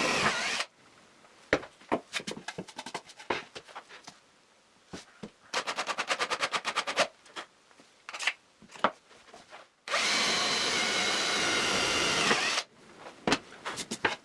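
Bench drill press running and cutting off about half a second in, while drilling a centring mark in plywood. Scattered clicks and knocks follow, with a quick run of rapid clicks in the middle, then the drill press runs again for about two and a half seconds and stops.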